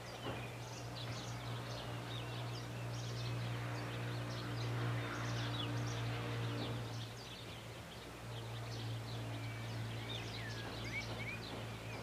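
Many small birds chirping and twittering at once: dense, overlapping short high notes, with a few clearer whistled notes near the end. A steady low hum runs underneath.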